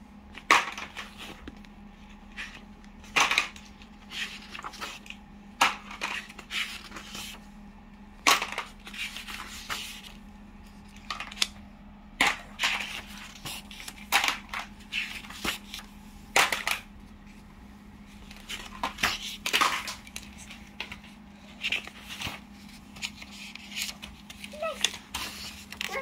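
Paper pages of a softcover textbook being turned, rustling in irregular bursts with sharper, louder flips every few seconds.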